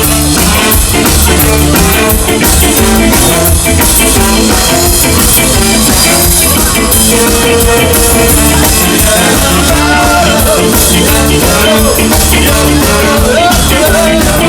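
Ska band playing live at full volume: drum kit and bass driving a steady, even beat under the rest of the band.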